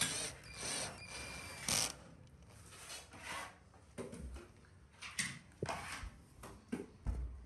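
Cordless drill driving a screw into a gypsum ceiling board, its motor whining for a little under two seconds. Light clicks and knocks of handling follow.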